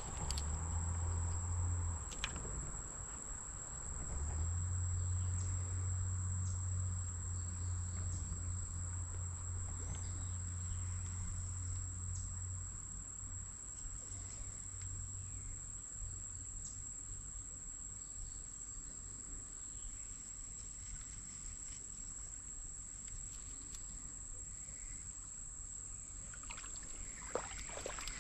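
Insects trilling in one steady, unbroken high-pitched tone, with a low rumble under it for about the first twelve seconds and a few light clicks near the end.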